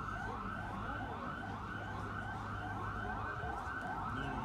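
Electronic siren sounding a fast yelp: a rising sweep repeated about two to three times a second, steady and unbroken.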